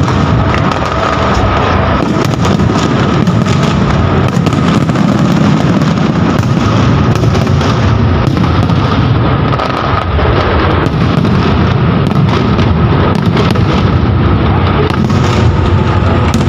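Aerial fireworks display: a continuous barrage of shell bursts, many bangs and crackles in quick succession without a break.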